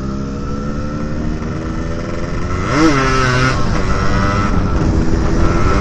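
Yamaha RX-King two-stroke motorcycle engine pulling away under throttle, its pitch climbing steadily. About three seconds in the pitch jumps up and drops back, as at a gear change, then climbs again. The exhaust is the stock muffler with its long internal baffle cut out and replaced by iron pipe, which makes it louder than stock.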